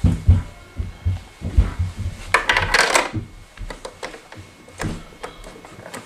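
A coin rattling and clinking through a Lego-brick vending machine's coin mechanism, loudest a little over two seconds in, amid low knocks of hands handling the plastic bricks. The 20-cent coin is being rejected.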